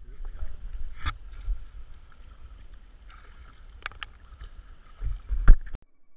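Water lapping and sloshing against a kayak hull right by the microphone, over a low wind rumble, with three sharper splashes about a second in, near four seconds and near the end, the last the loudest. The sound cuts off abruptly just before the end.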